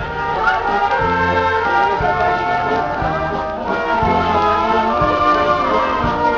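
Brass band playing live outdoors, trombones and trumpets holding sustained notes over a steady drum beat of about one stroke a second.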